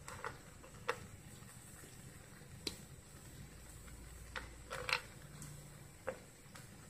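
Scattered light clicks and taps, about six, the loudest about five seconds in, as cashews and raisins are picked off a ceramic plate and set by hand into a pan. A faint low hum runs underneath.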